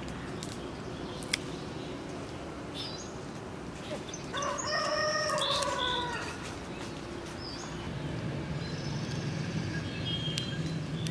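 A rooster crows once, a pitched call of about two seconds that starts about four seconds in and trails down at the end; it is the loudest sound here.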